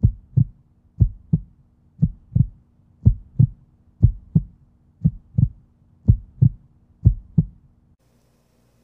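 Heartbeat sound effect: low lub-dub thumps in pairs, about one pair a second, eight pairs in all, stopping near the end.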